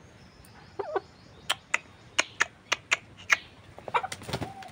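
White broiler chicken giving a few short calls, with a run of about seven sharp clicks, a few each second, through the middle.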